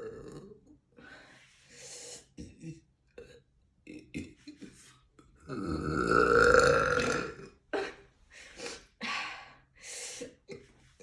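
A woman burping: one long, loud, deep burp about halfway through. Short, breathy noises come before and after it.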